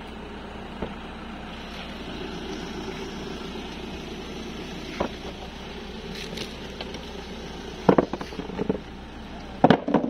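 Plastic core sample tray being handled and turned over, giving a few light knocks, then clusters of louder hollow clatters about eight seconds in and just before the end as it is put down on concrete, over steady background noise.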